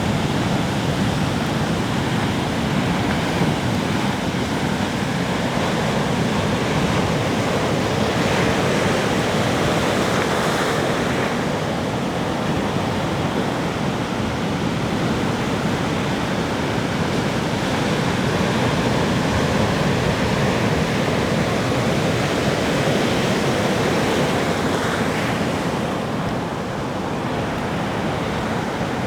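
Ocean surf washing onto a beach in a steady, continuous rush, swelling a little as waves break about a third of the way in and again near the end.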